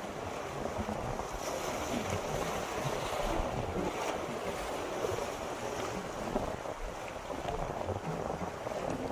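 Steady rush of wind and sea waves, with wind buffeting the microphone.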